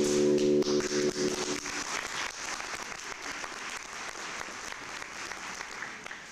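Audience applauding, the clapping fading away over several seconds. A held musical chord stops about a second and a half in.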